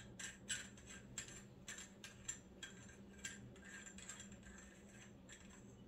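Faint, irregular small metallic clicks and ticks, about two a second and thinning out near the end, as the threaded top of a small billet-metal oil catch can is turned and unscrewed by hand.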